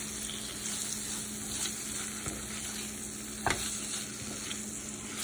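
Yellowfin tuna, onions and spices sizzling in oil in a frying pan while a spatula stirs them, scraping the pan now and then, with one sharper scrape about three and a half seconds in.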